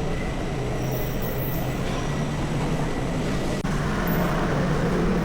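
Steady vehicle and road noise inside a tiled underground passage, an even rush with a low hum, and a single brief click about three and a half seconds in.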